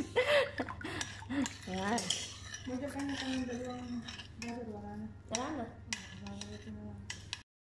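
Spoon clinking and scraping against a metal bowl of dipping sauce and a plastic dish, under a person's drawn-out voice; everything cuts off suddenly near the end.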